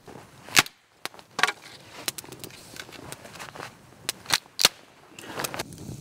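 Campfire of dry sticks crackling, with several loud, sharp pops as the burning wood bursts.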